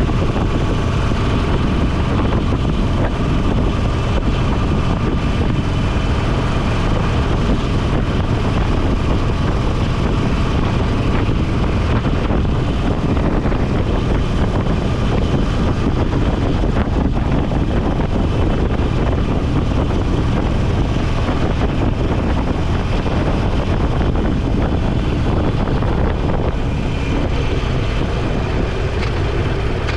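Motorcycle running at a steady cruising speed, its engine under load mixed with heavy wind rush on the microphone; the level eases slightly near the end.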